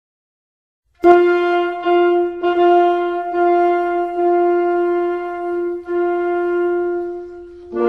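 Background music: a wind instrument starts about a second in and holds one note, sounded again on the same pitch several times. Near the end more notes join in, forming a chord.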